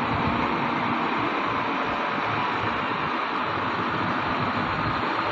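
Diesel engine of a UD Trucks Quester tractor unit running at low speed as it pulls a loaded lowboy trailer slowly forward, under a steady hiss.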